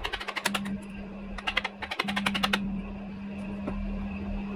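Wooden mallet driving a chisel into a softwood roofing batten: three quick runs of sharp knocks in the first two and a half seconds, then a pause.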